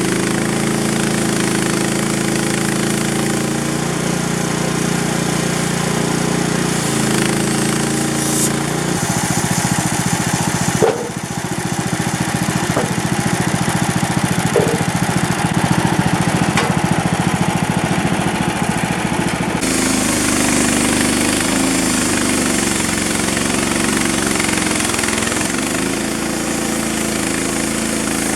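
An engine running steadily and loudly. Its tone changes abruptly about nine seconds in and again near twenty seconds, with a brief knock about eleven seconds in.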